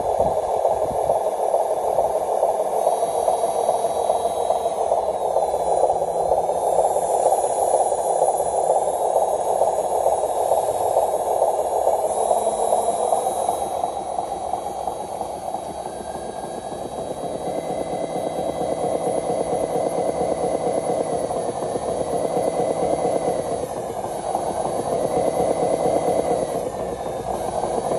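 Electric drive motors and gearboxes of radio-controlled model trucks whining steadily as a model truck crawls over a load of dirt. In the second half a higher motor whine rises and falls in pitch as the throttle changes.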